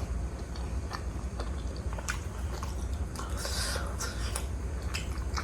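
Close-miked chewing of juicy pork momo dumplings dipped in tomato achar: wet mouth clicks and smacks throughout, with a longer wet noise about three and a half seconds in.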